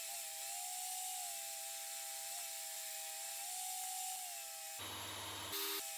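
Portable table saw running while ripping thin strips from wood offcuts: a steady motor whine that sags slightly in pitch as the blade takes the cut, changing abruptly about five seconds in.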